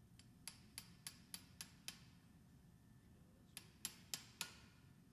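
Light hammer taps on metal: a run of six quick, sharp strikes about three a second, then after a pause a run of four more.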